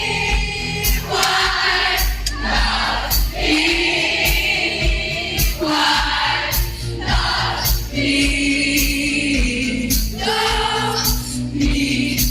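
Live concert performance of a pop song: singing over a band with regular drum hits, recorded in the hall.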